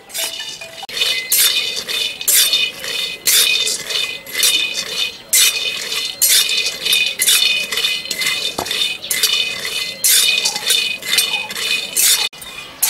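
Steel spatula scraping and clinking against a steel kadhai as peanuts are stirred while dry-roasting over a wood fire. Repeated sharp strokes, about one or two a second, each with a ringing metallic tone.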